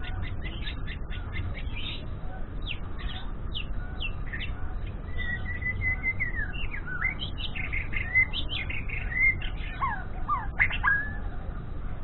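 White-rumped shama (murai batu Medan) singing. A run of short sharp chirps gives way to a held whistle and then a string of varied sliding notes, some dropping low near the end.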